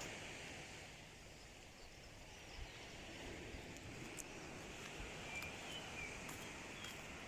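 Quiet seaside ambience: a soft wash of sea waves dying away in the first second, leaving a low hiss, with a few faint short bird chirps in the second half.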